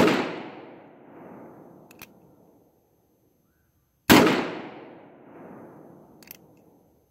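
Cimarron Pistolero single-action revolver fired twice, about four seconds apart, each shot trailing off in an echo of two seconds or so. Sharp clicks of the hammer being cocked come between and after the shots.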